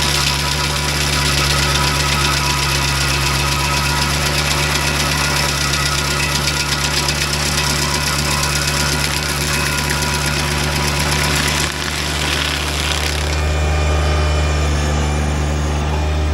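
Tractor engine running steadily, driving a PTO stump grinder, with a low drone throughout. A high hissing layer over it dies down about thirteen seconds in, leaving mostly the engine drone.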